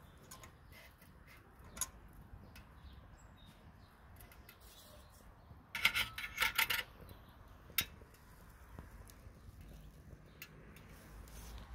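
Metal rod clinking and rattling against the steel feed door of a Quechua MH500 wood-burning camping stove for about a second, about six seconds in. Single sharp clicks come near two seconds and near eight seconds in.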